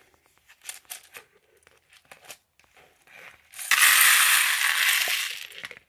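Plastic Lego pieces poured from a pick-a-brick cup into a clear plastic tray: a few light clicks of handling, then a loud clattering cascade of bricks, tiles and flowers lasting about two seconds, starting a little past the middle.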